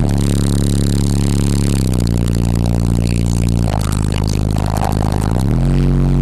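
FB Audio 12-inch, 800 W RMS subwoofer playing bass-heavy music loud: deep sustained bass notes that step to a new pitch every couple of seconds, with a rattle alongside, strongest in the middle.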